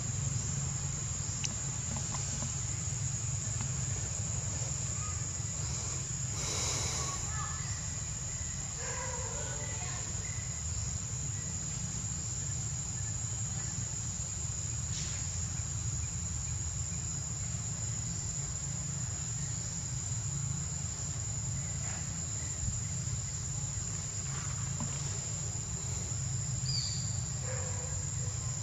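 Insects droning on one steady high pitch, with a low background rumble and a few faint bird chirps.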